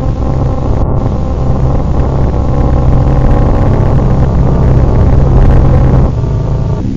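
A loud, dense droning rumble made of many steady low tones stacked together, with an engine-like character; about six seconds in, the deepest part drops away and the drone thins out.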